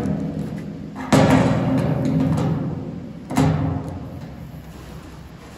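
Background music with heavy, timpani-like drum hits, one about a second in and another about three and a half seconds in, each ringing out slowly.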